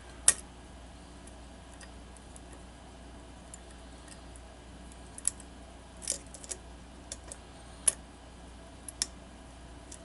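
Sporadic sharp metal clicks of a hook pick lifting and dropping the pins inside the 'Viper' challenge lock's pin-tumbler cylinder while it is held under tension. There is one loud click just after the start, a quieter stretch, then several more clicks spread over the second half.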